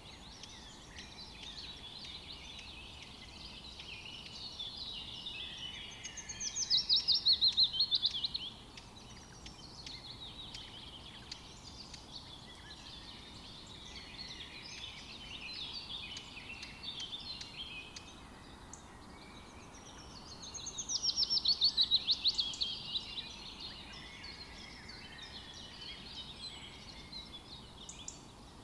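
Several forest songbirds chirping and singing without a break. Twice, about 6 s and 20 s in, a louder bird sings a fast trill of rapidly repeated notes lasting two to three seconds.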